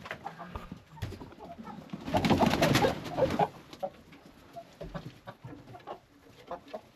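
Chickens clucking and calling, with a louder flurry of commotion from the flock about two seconds in lasting over a second, then scattered short clucks.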